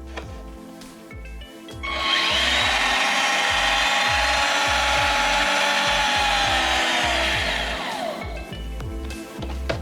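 Electric motor and drivetrain of a 1/10 scale RC off-road truck whining at speed for about six seconds, its pitch falling away near the end. Background music plays under it.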